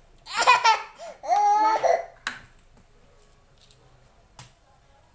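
Two short high-pitched vocal sounds in quick succession, the first wavering like a giggle, the second held more steadily, followed by a sharp click about two seconds in.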